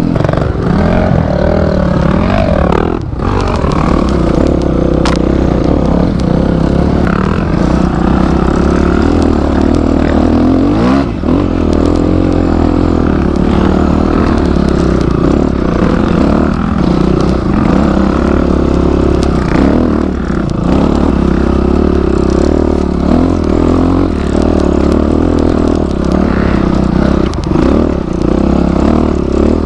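Off-road motorcycle engines idling steadily, with a brief blip of the throttle about eleven seconds in and another near the end.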